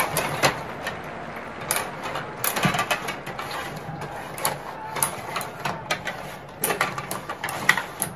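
Tabletop rod hockey game in play: metal rods sliding and spinning in the table, their gears and the plastic players clicking and clattering, with the puck knocking about. An irregular run of sharp clicks and knocks, busiest near the end.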